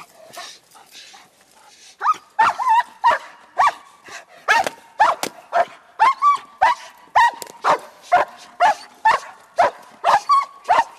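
German shepherd barking in a steady rhythm of about two barks a second, starting about two seconds in, as it works the helper in a protection-sport bark drill.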